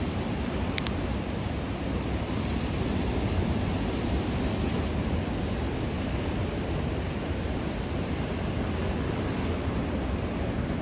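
Ocean surf breaking and washing over a rocky shore platform: a steady rushing wash without pauses.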